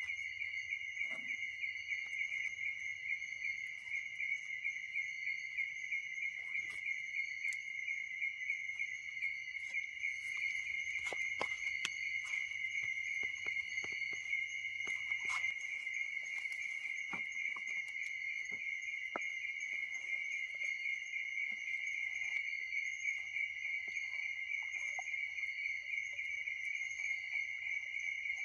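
Crickets calling in a steady, high-pitched, pulsing chorus, with scattered light clicks and knocks from bamboo and utensils being handled.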